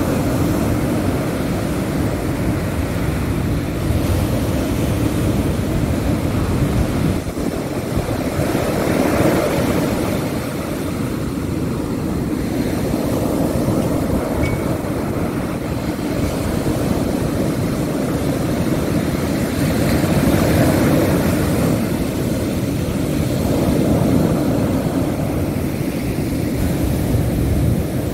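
Ocean surf breaking on a sandy beach: a constant, rumbling wash that swells and eases as each set of waves comes in, with wind buffeting the microphone.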